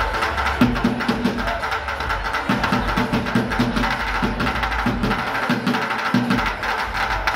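Two bucket drummers playing fast, dense rhythms with drumsticks on upturned plastic buckets.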